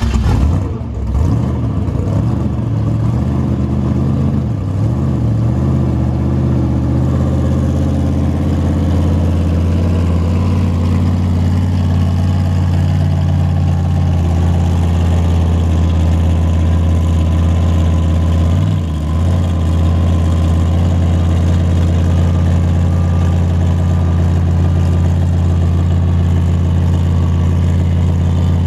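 Grave Digger monster truck's V8 engine running. It gives a few short uneven revs in the first few seconds, then settles into a steady deep low-speed rumble as the truck creeps along. The note dips briefly about two-thirds of the way through.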